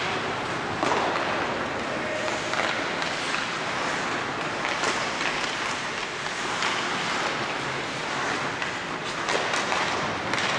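Ice hockey game sounds in an arena: a steady hiss of skates on the ice with repeated sharp clacks of sticks and puck.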